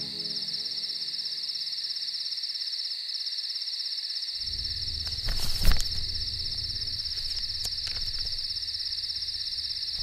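Crickets chirring steadily in a high, finely pulsing band. A low rumble comes in about four seconds in, and a short loud burst of noise stands out about five and a half seconds in.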